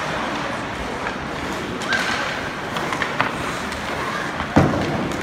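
Rink noise during a youth ice hockey game, with a few light knocks and one sharp thud near the end.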